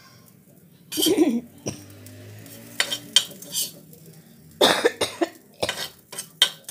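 A spoon knocking and scraping on an iron tawa as peas are scooped onto it: a run of sharp clinks and clatters, bunched together past the middle. A short cough about a second in.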